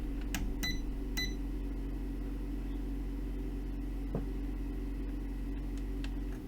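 A 50 Hz test tone coming from the Visonik V2608 car amplifier's working channel: a steady low hum with overtones, cutting off suddenly near the end. A few sharp clicks come in the first second or so, and one more about four seconds in.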